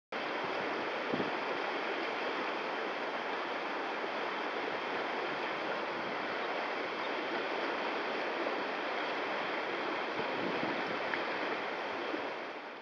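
Whitewater rapids rushing steadily over boulders, an even, unbroken wash of water noise that fades out right at the end.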